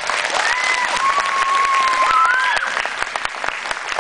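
Audience applauding in a large hall, with one long high steady tone over the clapping from about half a second in, lasting about two seconds and rising slightly before it stops.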